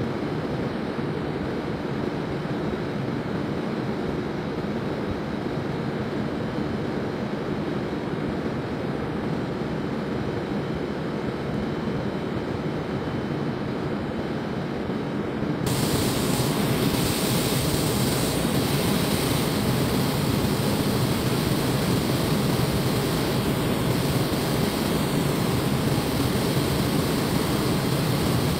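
Steady rushing, hissing noise of an automated car-body paint shop: water spray and machinery in the wash and dusting stations. About halfway through it gives way to a louder, brighter hiss in the robotic spray-painting booth.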